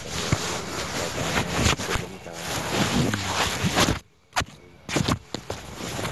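Rough, noisy playback of a leaked conversation recording: steady hiss and rustling with scattered knocks and muffled voices in places. It drops out to near silence for under a second about four seconds in.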